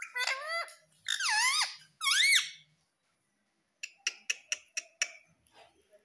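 Male rose-ringed parakeet (Indian ringneck) giving three squeaky calls that swoop down and back up in pitch. About a second later comes a quick run of about eight sharp clicks.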